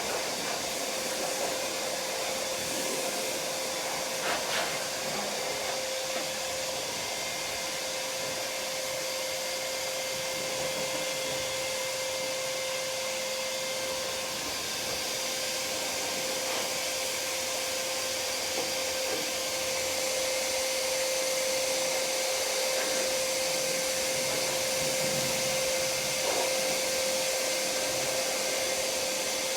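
Vacuum cleaner running steadily as a blower, clearing sanding dust off a wooden tabletop, with a steady whine over its rushing air; it gets a little louder about two-thirds of the way through.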